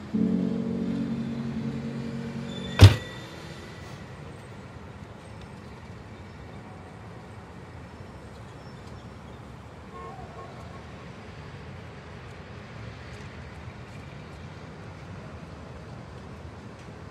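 A held, steady musical chord fades out over the first few seconds and is cut short by a single sharp, loud thud. Then comes a steady low rumble of traffic and car-cabin background noise.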